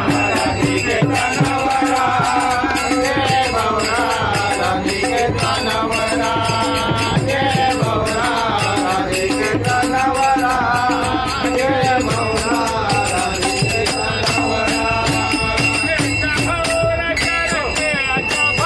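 A group of men singing a Marathi devotional bhajan together, with a pair of small hand cymbals (taal) struck in a steady rhythm throughout.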